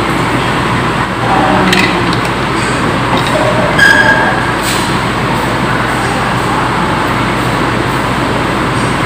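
Steady loud background roar of a restaurant dining room, with a few faint short sounds about two and four seconds in.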